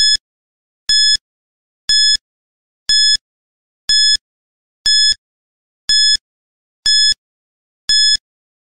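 Countdown timer sound effect: nine short, identical high electronic beeps, one each second, counting down the seconds.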